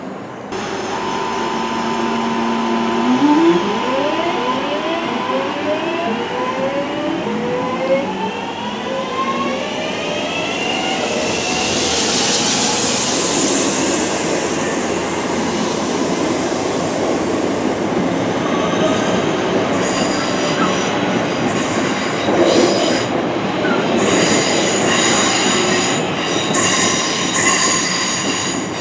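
West Midlands Railway Class 323 electric multiple unit under power, its traction motors whining in a series of rising, stepped tones as it accelerates. In the last ten seconds the rising tones give way to steady high-pitched whining and squealing from the train.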